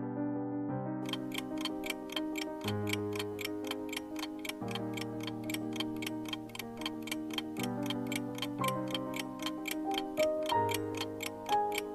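Soft electric-piano background music with a clock-ticking sound effect laid over it. The fast, even ticks start about a second in and mark a countdown timer running out.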